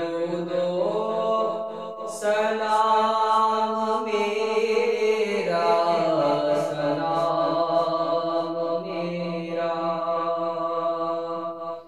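Unaccompanied male voice chanting an Urdu Salaam (Islamic devotional poem) in long held notes that step to a new pitch a few times.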